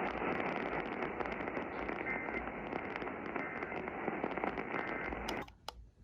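Radio static: a steady hiss with crackling, cutting out suddenly about five seconds in.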